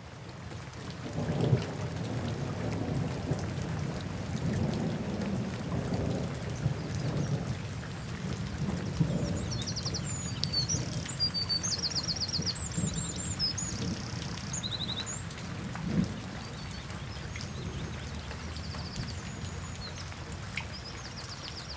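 Steady spring rain falling, with songbirds singing quick trilled phrases from about nine seconds in and again near the end. A low rumble fills the first several seconds, and there is a single brief knock about sixteen seconds in.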